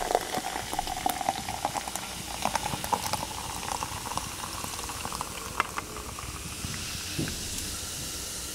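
Mountain Dew Violet, a carbonated grape soda, poured from a can into a glass: the stream splashes into the filling glass with crackling fizz. A steady hiss of bubbles builds near the end.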